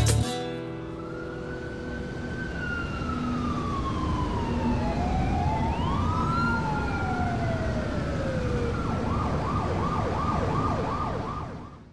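Police sirens wailing, two or more slow rising and falling glides overlapping, switching to a fast yelp about nine seconds in, over a low street rumble; the sound fades out at the very end.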